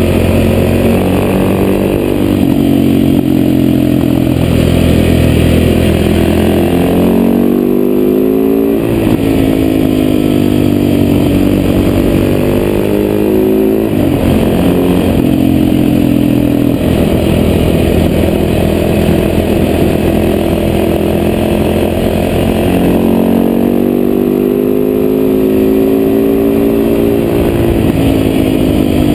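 Husaberg FS570 supermoto's single-cylinder four-stroke engine under way through an FMF exhaust, the revs climbing in several long pulls, each ending in a sharp drop, with wind rush over the microphone.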